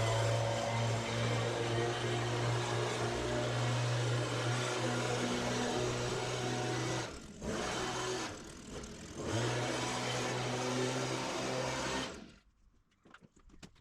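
Pressure washer running steadily with its engine hum under the hiss of the water jet. It drops away briefly twice partway through, then cuts off shortly before the end.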